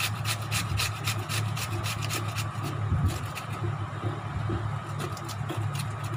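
Cucumber, skin on, being grated on a flat metal hand grater: quick rasping strokes, about four or five a second, growing sparser in the second half.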